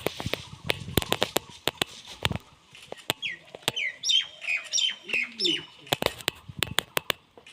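Birds calling: a run of short, high chirps that fall in pitch, clustered in the middle, among many sharp clicks and taps.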